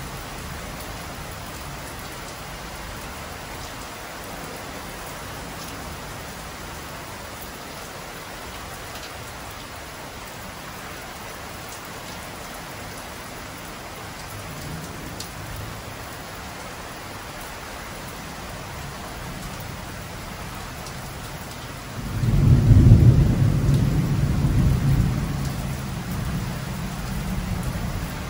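Heavy rain falling steadily. Near the end a loud, low rumble of thunder breaks in suddenly and rolls away over several seconds.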